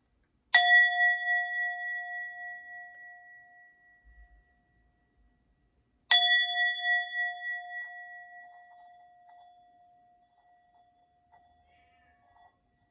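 A singing bowl struck twice, about five and a half seconds apart. Each strike rings out in a clear tone with higher overtones and fades slowly with a wavering beat. The second strike rings on faintly almost to the end.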